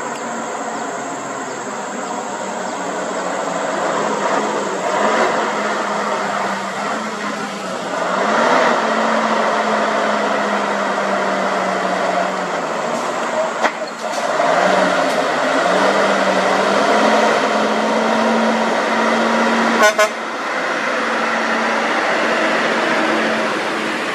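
Heavy-haul truck tractor pulling a loaded lowboy trailer, its diesel engine running steadily under load on an uphill climb. The engine's pitch shifts a couple of times, and there is a brief loud blip about twenty seconds in.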